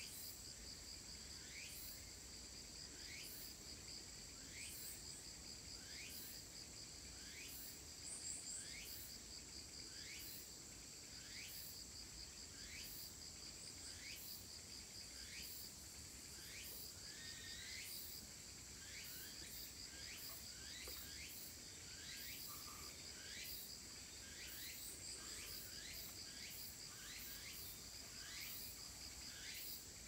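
Insects chirring steadily in two continuous high tones, the lower one finely pulsed. Over this a short rising call repeats a little more than once a second.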